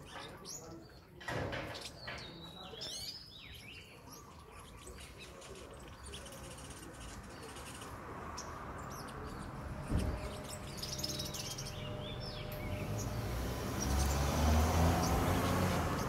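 Olive-backed sunbird giving quick, high chirping calls in the first few seconds. A thump comes about two-thirds of the way through, and a low rumble builds in the last few seconds.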